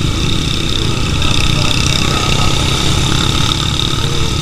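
Motorcycle engine running steadily and close, with a fast, even low-pitched pulse and no change in pace.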